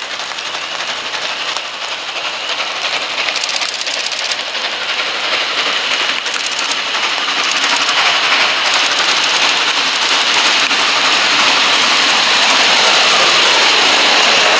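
Norfolk & Western Class J No. 611, a 4-8-4 steam locomotive, approaching along the track. Its exhaust and running gear grow steadily louder as it draws near and reaches the listener near the end.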